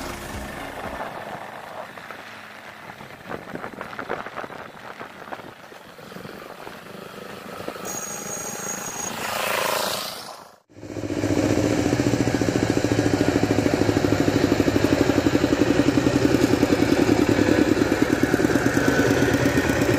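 Quiet mixed noise with scattered clicks, then after a cut about ten seconds in, a motor engine running steadily with a fast, even throb.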